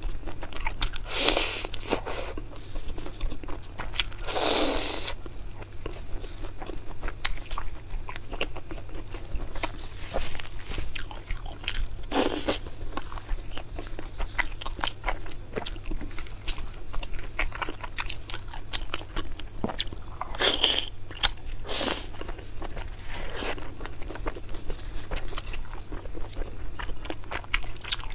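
A person biting and chewing spicy skewered octopus close to the microphone: many small wet clicks, with several louder bites spread through.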